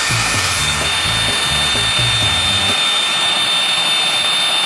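Power drill running steadily, driving the ladder crane's winch as the load is lowered, with a constant high whine over a hiss. Background music with a bass beat plays underneath and stops a little over halfway through.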